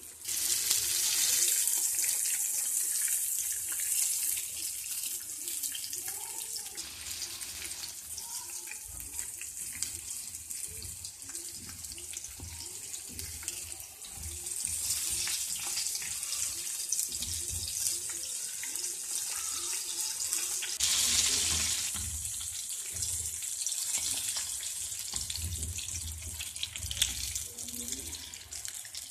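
Battered fish pieces sizzling in hot oil in a frying pan, a steady frying hiss that swells louder a few times, with light knocks of a wooden spatula as the pieces are turned.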